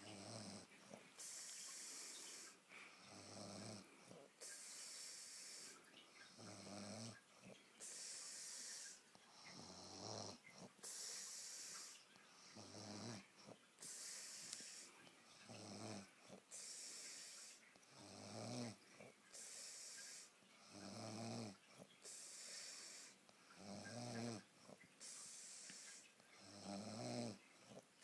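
Slow, regular snoring: a low pitched snore alternating with a hissing breath, about one breath every three seconds.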